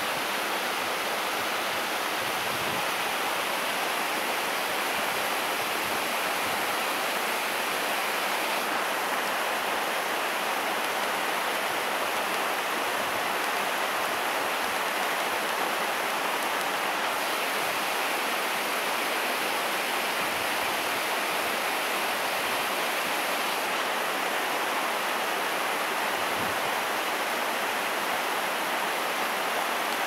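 Waterfall rushing: a steady, even hiss of falling water that holds the same level throughout.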